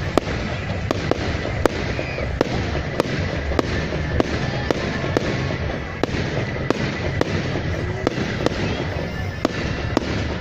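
Fireworks going off at a display: a continuous crackle with sharp bangs every half second or so.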